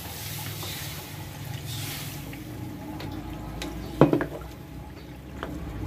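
Water poured from a bowl into a wok of frying pork adobo, splashing in for about the first two seconds. Then a metal ladle stirring in the steel wok, with a few light clicks and one sharp knock about four seconds in.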